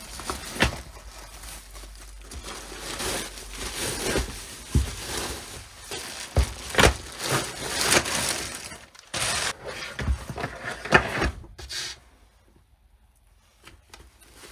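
Woven plastic sack and a clear plastic bag rustling and crinkling as they are pulled off a fabric rifle carrying case, with several sharp crackles and thumps. The handling stops a couple of seconds before the end.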